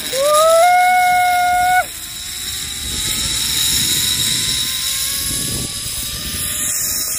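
Zipline trolley pulleys rolling down the steel cable, with air rushing past. A whine slowly rises in pitch as the rider picks up speed. It opens with a loud, held high tone lasting nearly two seconds that cuts off sharply.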